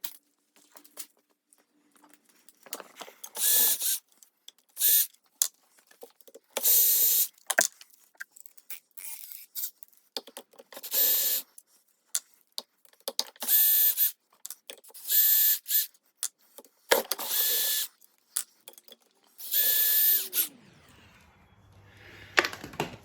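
A power drill with a socket spinning out the crankcase cover bolts of a small lawnmower engine: about eight short bursts of steady motor whine, with small clicks and clinks of bolts and tools between them.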